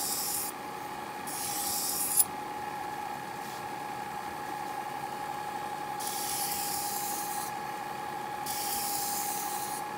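Tradesman Edge belt grinder running with a steady whine while a knife blade is drawn across the moving abrasive belt in four grinding passes, each a rasping hiss. A sharp click comes at the end of the second pass.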